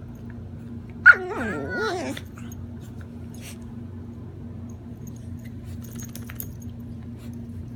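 A pet animal's play vocalisation: one wavering call about a second long, its pitch sliding down and up, starting sharply about a second in. A steady low hum lies underneath.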